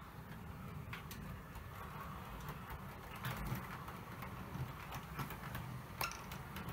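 OO gauge model diesel locomotive and its coaches running along the track toward the listener: a steady low hum from the running train that grows louder, with a few sharp clicks.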